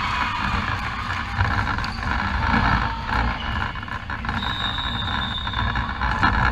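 Indoor sports hall ambience between volleyball rallies: a steady noisy wash with a low rumble and scattered small knocks, and a faint thin high tone for about a second some four and a half seconds in.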